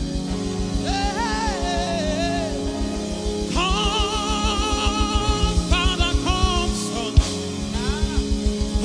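Gospel worship music: a band plays sustained chords over a steady, even beat, and a singer's vocal lines bend and glide over it in phrases. There is a single sharp click about seven seconds in.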